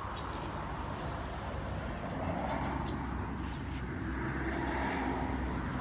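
Steady outdoor background noise: a low rumble with a faint steady hum that comes in about halfway through.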